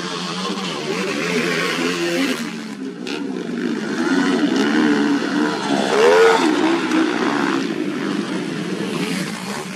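Motocross dirt bike engines revving hard and changing pitch as the bikes pass, with one rev climbing sharply about six seconds in.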